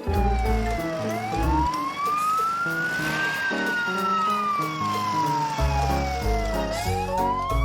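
A police siren wailing in slow sweeps, rising for about two seconds, falling for about three, then rising again near the end. Background music with a bass line plays underneath.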